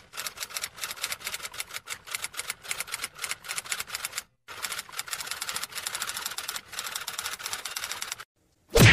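Typewriter sound effect: rapid, even key clicks, about ten a second, with a short break about four seconds in, ending in a loud thump near the end.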